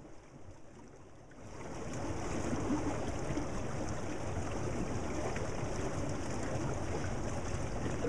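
Water running steadily in a partly frozen creek, fading in over the first two seconds and then holding an even level.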